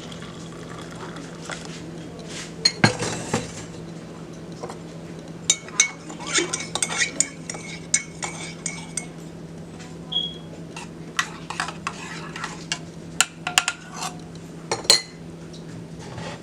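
Mugs, spoons and other kitchenware clinking and knocking while coffee is made, in many irregular sharp clinks. Under them runs a steady low hum that cuts off at the very end.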